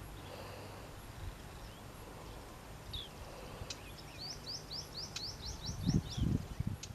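A bird calling a rapid series of short, high notes, each sliding downward, about four or five a second, after a single similar note a little earlier. A few low thumps near the end.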